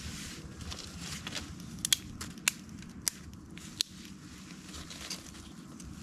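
Five sharp snaps or cracks over a low, steady rustling, the loudest about two seconds in.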